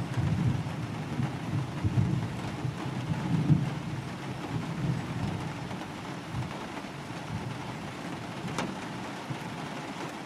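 Thunder rumbling low and unevenly, loudest in the first few seconds and slowly dying away, over steady rain. One sharp click near the end.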